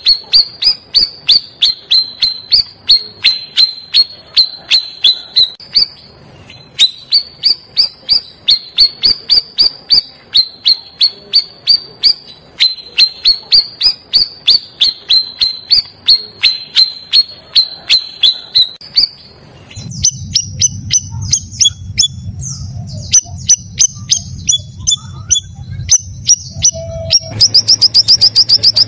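Cucak rawis (puff-backed bulbul) singing: a steady run of sharp, repeated chirps, about three a second. About two-thirds of the way through, the song changes to thinner, higher notes over a low hum, then to a fast trill of notes near the end.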